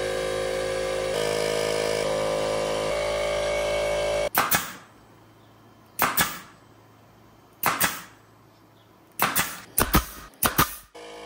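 Pneumatic 18-gauge brad nailer firing brads into a pine drawer box. The sharp shots come about every second and a half, then several in quick succession near the end. Before the first shot there is a steady hum that shifts pitch twice.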